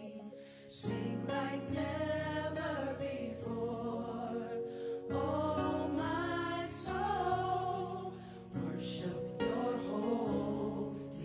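Gospel worship music: several voices singing together over sustained held chords.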